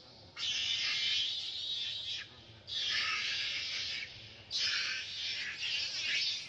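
Macaque screaming in three long, shrill bouts with short breaks between them, the distress calls of a monkey under attack.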